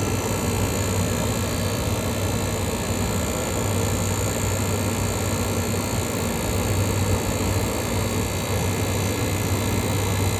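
Air conditioner running with its Matsushita rotary compressor on: a steady low hum under the even rush of the condenser fan blowing air out the back.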